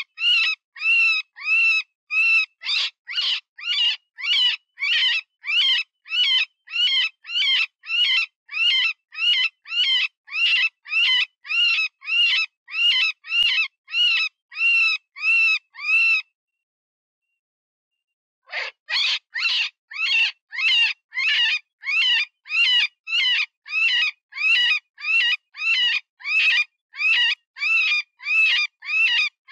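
Cottontail rabbit distress call: a rapid series of high, wavering squeals, about two a second, that stops for about two seconds past the middle and then resumes. It is the cry of a wounded or caught rabbit, the classic lure for coyotes, foxes and other predators.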